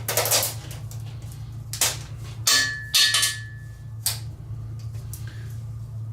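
Sharp metallic clanks and clatter as a multi-layer steel head gasket is pried up and pulled off an aluminium LS4 engine block, five or so knocks in the first four seconds, one of them leaving a metallic ring of about a second and a half.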